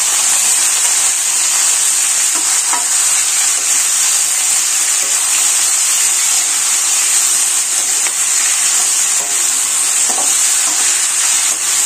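Fenugreek leaves and fried potato cubes sizzling steadily in hot mustard oil in a kadhai, while a metal spatula stirs and scrapes them through the pan.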